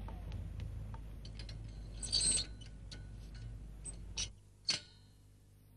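Metal clicks and clanks of an iron-barred gate door being opened and pushed shut, the loudest about two seconds in and a few more near four to five seconds, over a low engine rumble that cuts off about four seconds in.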